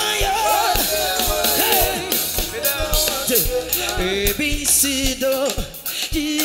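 Live Ghanaian gospel music: a singer on a microphone over keyboard and a steady drum beat.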